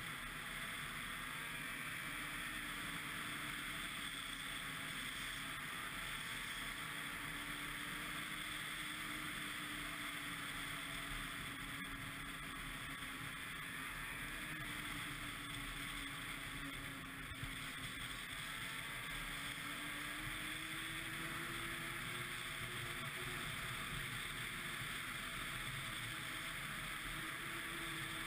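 Ski-Doo MXZ 600 XRS snowmobile's 600 cc two-stroke engine running under way, its pitch drifting slowly up and down, over a steady hiss.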